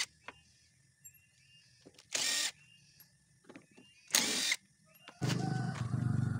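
Cordless drill backing out CVT cover bolts in three brief whirrs about two seconds apart. About five seconds in, a steady low hum takes over.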